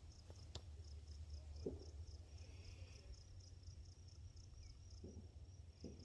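Near silence with a faint insect chirping evenly, about three chirps a second, and a few faint small clicks.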